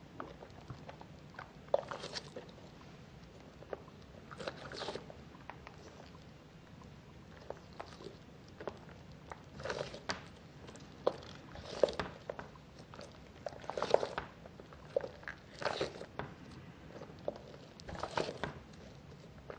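A soft squishy toy shaped like a chocolate pastry, squeezed and kneaded in the hands: irregular faint rubbing and crackling noises in short bursts, busier in the second half.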